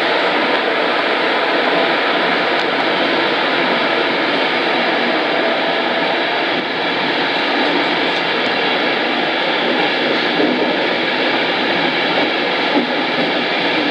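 Passenger train coaches rolling past close by at speed: a loud, steady rush of wheels on rail.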